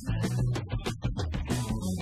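Background music: a guitar-led track with bass notes and drum hits.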